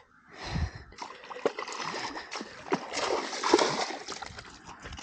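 Water splashing and sloshing in irregular bursts, with a dull thump about half a second in, as a hooked snakehead thrashes at the surface on a live-bait line.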